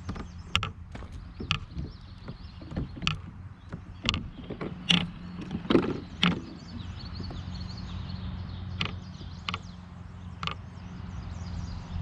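A string of irregular sharp knocks and clicks, loudest around the middle, over a steady low hum, with faint high chirps like birds.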